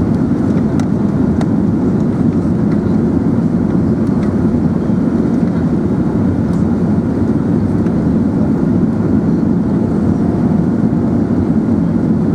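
Steady low rumble of an Airbus A380 heard from inside the passenger cabin, the engines and air noise running evenly with no change in level.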